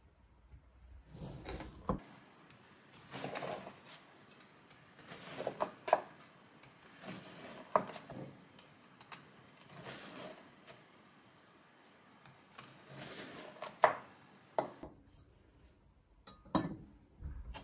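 Serrated bread knife sawing through a crusty stollen loaf in repeated back-and-forth strokes. Several sharp knocks come as the blade reaches the wooden cutting board at the end of a slice.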